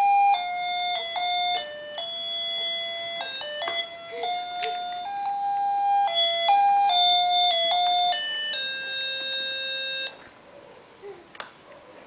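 Baby walker's electronic toy tray playing a simple beeping tune of plain electronic notes stepping up and down. The tune stops about ten seconds in, leaving a few faint taps.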